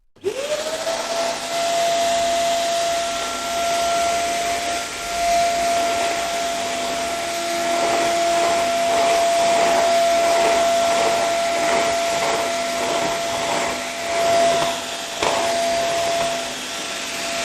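Roly 188 wet and dry vacuum cleaner switched on, its motor rising quickly to a steady high whine with a rush of air. It is sucking up spilled cola, with an irregular slurping pulse through the middle.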